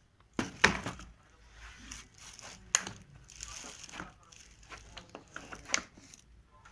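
Plastic and cardboard packaging being handled, crinkling and rustling, with a few sharp knocks and clicks.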